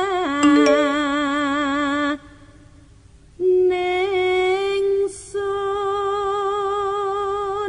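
A woman singing a slow Javanese song in long held notes with a wavering vibrato; she breaks off about two seconds in, comes back a second later, and ends on a long held note.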